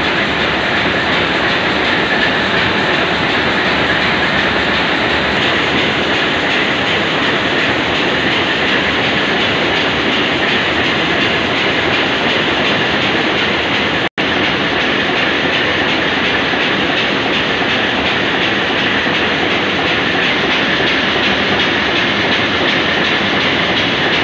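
Main diesel engine running under test, a loud steady mechanical din that breaks off for an instant about halfway through.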